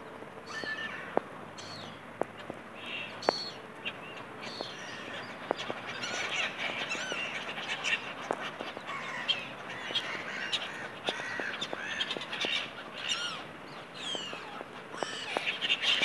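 A flock of black-headed gulls calling, short harsh cries that thicken into a constant squabbling chorus from about six seconds in and are loudest near the end. A few sharp clicks sound in the first seconds.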